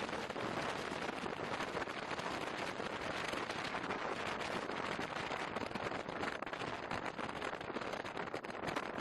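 Strong wind on the microphone mixed with sea waves: a steady, crackling rush of noise.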